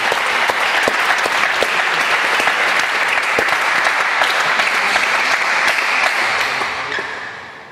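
Audience applauding with dense clapping, dying away near the end.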